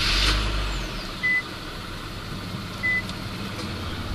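Infiniti Q50's 3.0-litre twin-turbo V6 just after its first start with a JB4 boost controller fitted, the start-up rush fading within the first second into a steady idle. A short electronic chime beeps about every second and a half over it.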